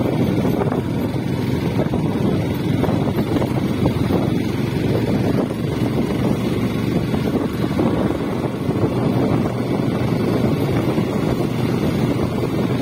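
Motorcycle running steadily while riding along, with a continuous rush of wind on the microphone.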